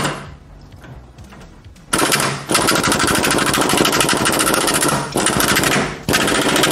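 Impact wrench hammering rapidly as it drives a threaded bearing-race installer, pressing a steering head bearing race into the motorcycle frame. It starts about two seconds in, runs for about three seconds, pauses briefly and hammers again near the end.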